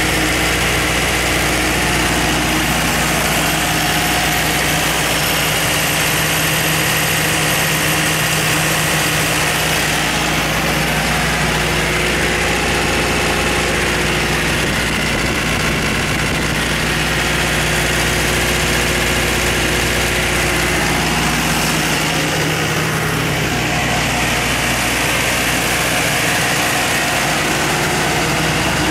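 Cummins QSB5-G7 four-cylinder diesel engine of a Doosan G70 62 kW generator set running steadily at its 1800 rpm governed speed, with no load on the generator.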